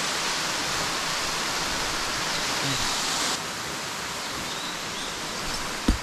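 Steady rush of falling water from a waterfall, a little quieter after about three and a half seconds. A single sharp knock just before the end.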